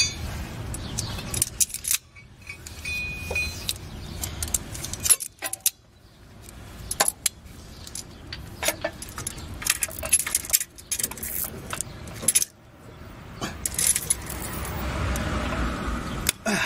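Vise-Grip locking pliers and a threaded-rod slide hammer being handled and clamped in place, with irregular metallic clinks, clicks and rattling.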